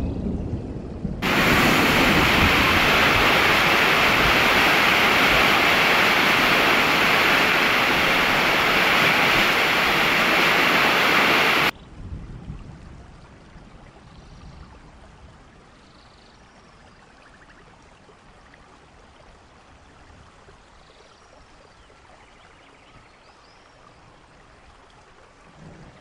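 A low rumble in the first second, then a loud, steady roar of falling water that starts abruptly about a second in and cuts off sharply a little before halfway through. After it only a much fainter steady water hiss remains.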